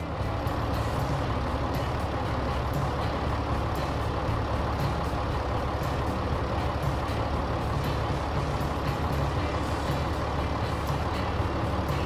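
Tractor engine sound effect, running steadily at an even level.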